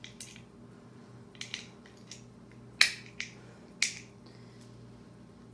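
A scattered run of sharp clicks and clacks from a hand tool being handled: ratcheting PVC pipe cutters whose pivot screw has just fallen out. The loudest click comes about three seconds in.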